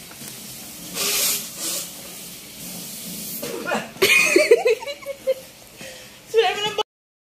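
Muffled, breathy laughter: a hissing snicker about a second in, then a louder burst of giggling about four seconds in and another short one near the end.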